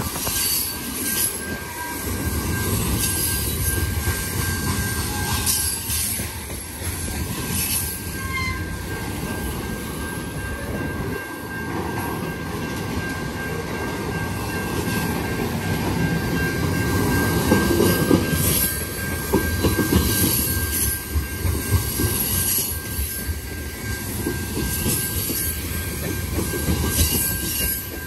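Freight cars of a CN mixed train rolling past. A steady rumble carries a thin high-pitched ring from the wheels, and short clicks come at irregular intervals.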